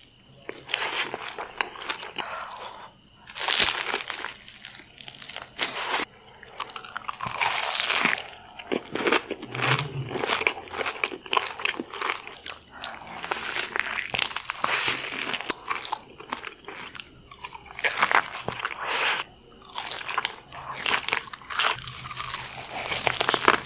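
Close-miked ASMR eating sounds: repeated crunching bites and chewing of Alaskan king crab legs in a crunchy red coating.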